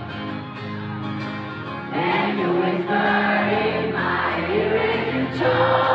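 Live band music led by strummed acoustic guitar chords. From about two seconds in, a mass of voices sings along, sounding like a crowd singing.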